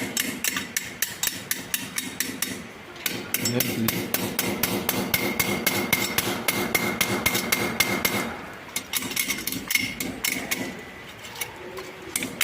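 Hammer tapping gently and rapidly, several light blows a second, driving fischer wall plugs into drilled holes in the wall. There are short pauses about three seconds in and again around nine seconds.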